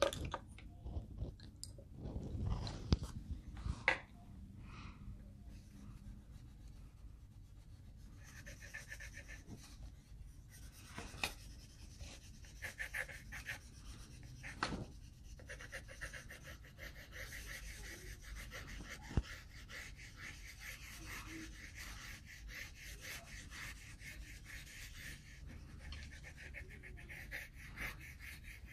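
Coloured pencils shading on paper: a steady, scratchy rubbing of pencil lead back and forth that sets in about eight seconds in. Before it, a few light clicks and knocks as pencils are picked up from the pile.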